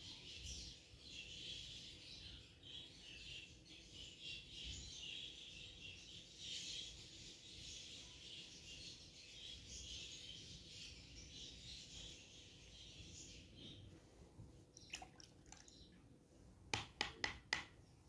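Faint, continuous chirping of many small birds in the background. A few sharp knocks come in a cluster near the end.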